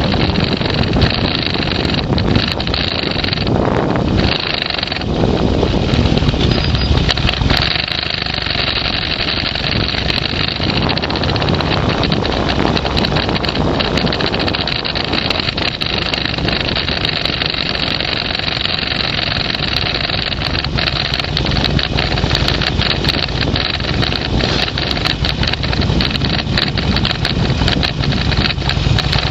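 A motor vehicle's engine running, with a short drop about four to five seconds in.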